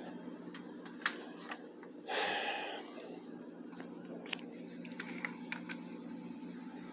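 Steady low hum with a few faint clicks, and a short breathy exhale a little after two seconds in.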